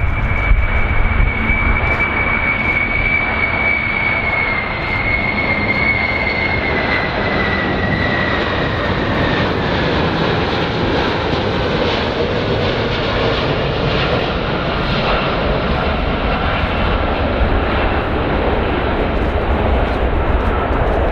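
Airplane engines running loud and steady, with a deep rumble under a high whine that slowly drops in pitch over the first ten seconds or so.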